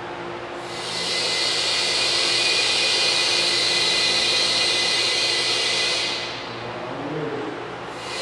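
Loud steady hiss of compressed air from the pneumatic debris cannon's air system before a shot. It runs for about five seconds, dies down briefly, then starts again near the end.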